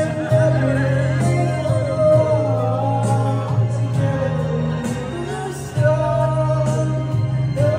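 A man singing a slow song into a microphone over a backing track, with long held bass notes under the melody.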